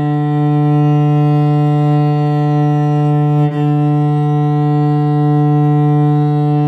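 A cello bowed on one long, steady low note, with a short dip about three and a half seconds in as the bow changes direction.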